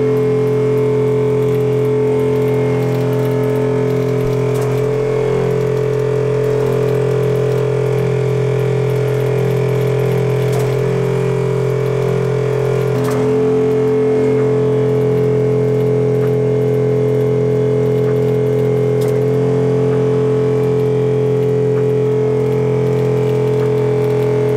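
Spectra Ventura 200T watermaker running on 12 V, its pump giving a loud, steady hum. The tone shifts slightly about halfway through.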